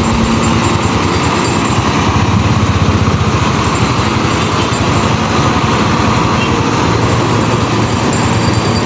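An engine running at a steady speed, loud and close, with a fast low throb.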